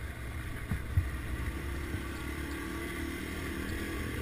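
Small single-cylinder Yamaha dual-sport motorcycle running on a dirt road, heard close from the rider's own bike as a steady low rumble. There are a couple of light knocks about a second in, and a faint steady hum comes in about two seconds in.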